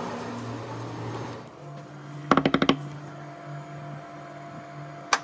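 Quick knocking on a hotel room door, about six rapid knocks in under half a second midway, over a steady low hum. A single sharp click comes near the end.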